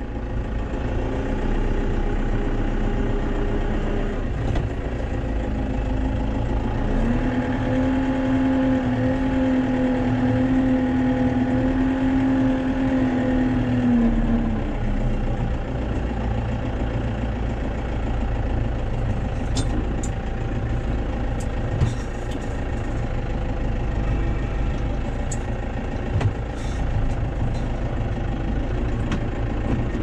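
Tractor diesel engine running steadily, with a higher steady hum joining about seven seconds in and dropping away around fourteen seconds.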